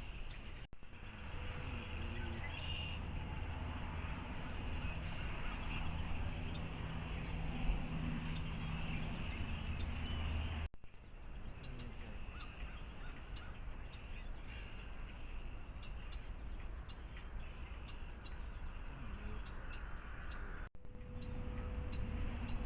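Wild birds at a feeder calling and chirping, with many short high calls scattered through, over a steady low outdoor rumble. The sound drops out briefly three times.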